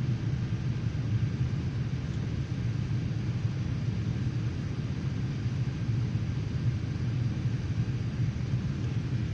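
Steady low rumble of an airliner's jet engines and airflow heard inside the passenger cabin in flight.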